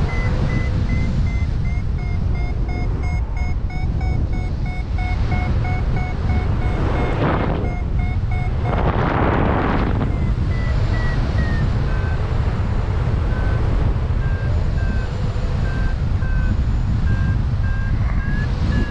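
Paragliding variometer beeping in a steady run of short tones over loud wind buffeting the microphone. The beeps signal climbing lift; about ten seconds in their pitch steps down, a sign of the climb slowing. Louder rushes of wind hiss swell up a few times.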